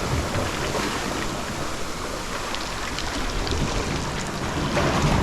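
Sea waves washing around the shore steps, a steady rushing wash, with wind buffeting the microphone.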